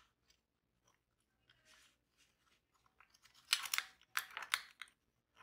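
Clicks and scrapes of a brushed-aluminium RAM heatsink and its small parts being handled as it is taken apart. There is a faint scratch about two seconds in, then a run of sharp clicks and scraping from about three to five seconds in.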